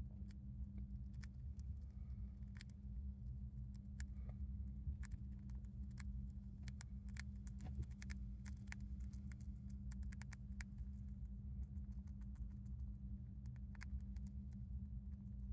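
Hamster drinking water: many small, sharp, irregular clicks from its licking, thickest in the middle, over a steady low hum.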